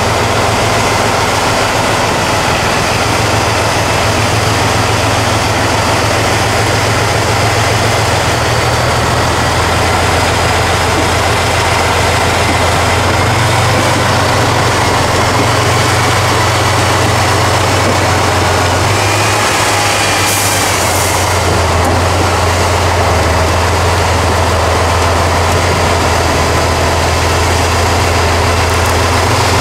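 Heavy diesel engine of a Tatra 8x8 trial truck labouring at low revs as it crawls through a steep, tilted obstacle, its low note shifting in pitch a few times. A brief hiss is heard about two-thirds through.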